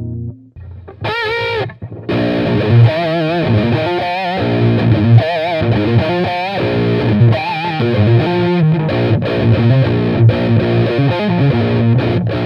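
Distorted electric guitar, a Seymour Duncan Invader bridge humbucker through an EL34 valve amp and 12-inch cab, playing a high-gain lead. It opens about a second in with a short high note shaken with wide vibrato, then moves into fast riffing with many vibrato-bent notes.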